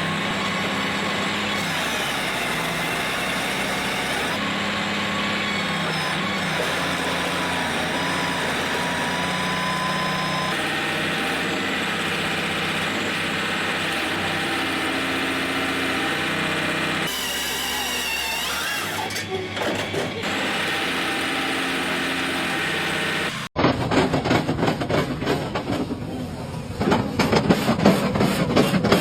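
Heavy machinery running steadily. After a sudden cut near the end, rapid rattling and knocking takes over, louder than before.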